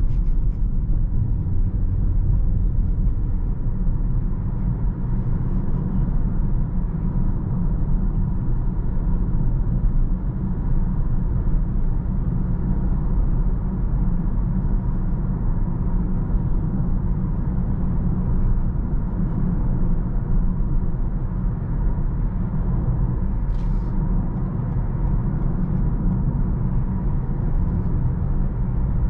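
2022 Toyota Corolla 1.8 Hybrid driving, a steady low rumble of road and running noise with a faint steady hum above it. A single short click comes near the end.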